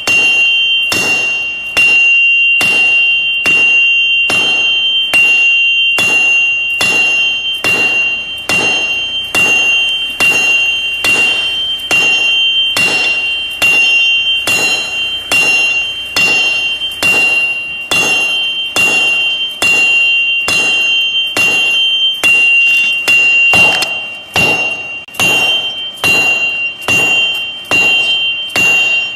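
Hammer striking a metal anvil in a steady, even rhythm of sharp blows. A high, sustained ringing from the anvil carries on between strikes.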